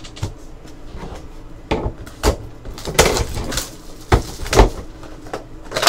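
Hands handling cardboard trading-card boxes and packs on a tabletop: a series of knocks and rustles, the loudest a little past the middle.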